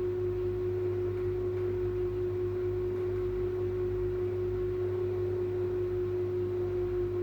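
Arçelik Orbital washing machine on its spin cycle: a steady high motor whine at a constant pitch over a low drum hum.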